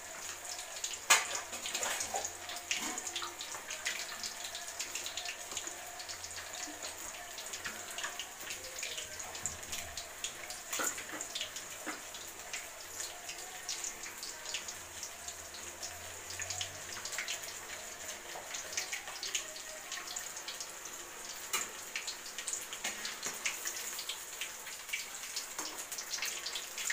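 Masala-coated fish pieces deep-frying in hot oil in a kadai: a steady sizzle with many small pops and crackles, and one sharper pop about a second in.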